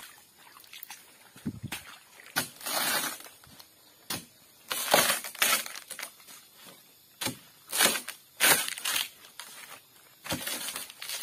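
Long-handled blade chopping into a felled sago palm trunk to open its bark: irregular heavy strikes, about one every second, some short knocks and some longer and rougher.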